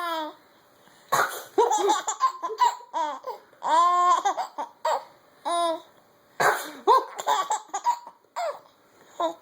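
Baby laughing in repeated bursts of giggles and high squeals. A girl's fake sneezes set it off, about a second in and again a little after six seconds.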